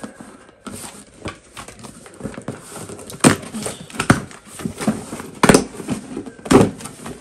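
Cardboard parcel being opened by hand: packaging rustling and tearing, with several sharp knocks, the loudest about three, five and a half and six and a half seconds in.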